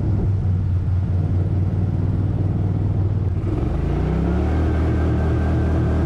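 Mud motor driving a small flat-bottomed boat, its engine running steadily and then rising in pitch as the throttle opens about three and a half seconds in, holding at the higher speed after that.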